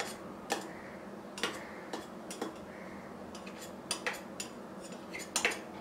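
Metal spatula tapping and scraping against a steel plate as it presses and smooths the edges of a slab of soft chana dal paste, a string of light, irregular clicks.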